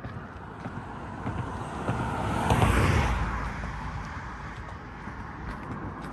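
A car driving past: its road noise swells to a peak a little before halfway through, then fades away.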